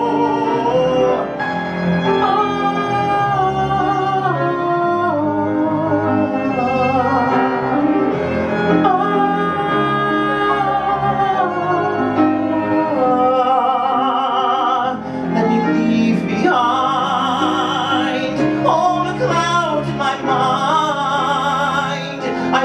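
Music: a solo singer holding long notes with strong vibrato over an instrumental accompaniment.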